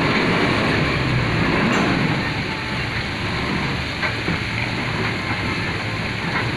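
JCB backhoe loader's diesel engine running steadily, easing a little about two seconds in.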